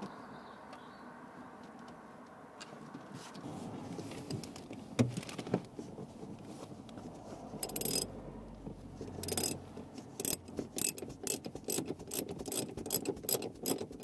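Seat slider rails under a bucket seat clicking and clacking as the seat is worked back and forth on its runners, with a few separate knocks and then a quick run of clicks in the last few seconds.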